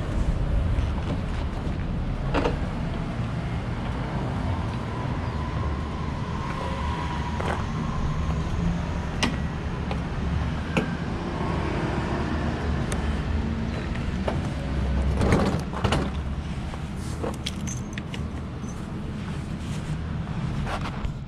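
Motorcycle engine idling with a steady low rumble, with scattered clicks and knocks as the rear delivery top box is opened and handled.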